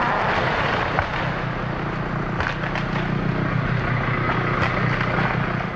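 An engine running steadily with a clattering, rattly noise over it, dropping away suddenly near the end.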